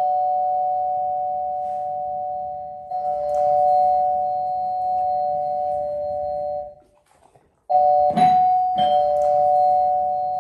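Two-tone doorbell chime played through a portable loudspeaker, its ding-dong notes ringing and struck again about three seconds in. It breaks off after about seven seconds, then chimes again a second later and rings on.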